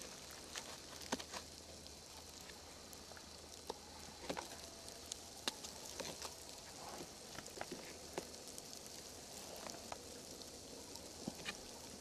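Faint steady hiss with scattered soft clicks and taps, the handling noise of a handheld camera being moved close over a log.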